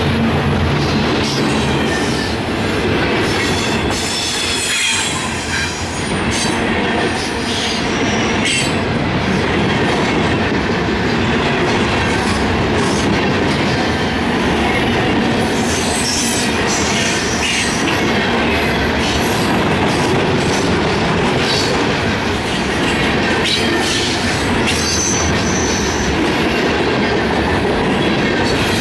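Freight train of flatcars loaded with waste containers rolling past at close range: steady rumble of steel wheels on rail, with repeated clicks over rail joints and intermittent high-pitched wheel squeal.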